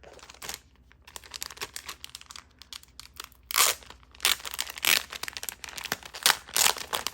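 Packaging crinkling and tearing as a sealed freebie blind-bag packet is opened by hand. It rustles softly at first, then comes in several louder crinkles and rips in the second half.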